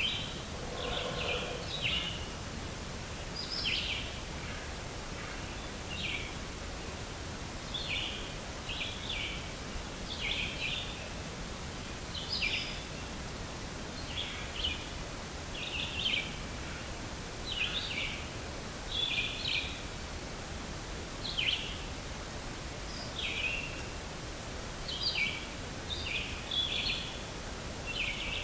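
A bird calling over and over: short, high chirping phrases every one to two seconds, over a steady background hiss.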